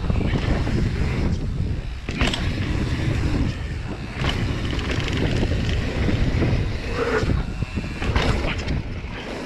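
Wind rumbling on the camera microphone as a mountain bike rolls fast down a dirt trail, with tyre noise on the dirt and a few short rattles and knocks from the bike over bumps.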